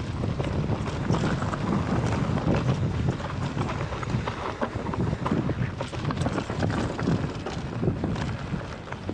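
Mountain bike rolling down a rocky trail: tyres crunching over loose stones and the bike rattling with a constant stream of small knocks, with wind rushing over the microphone.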